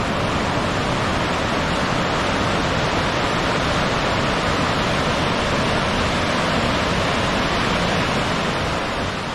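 Steady rush of fast, swollen river water churning through a narrow rock gorge, easing off slightly near the end.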